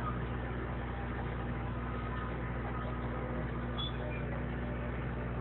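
Small motorboat's engine running steadily while the boat is under way, a constant low hum.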